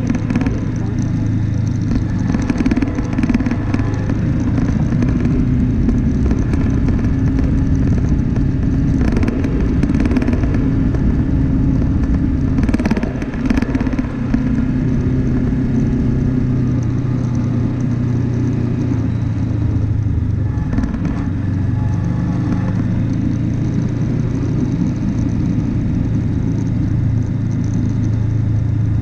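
Off-road vehicle's engine running steadily under way, its pitch shifting slightly now and then, with clattering rattles from the rough track about nine and thirteen seconds in.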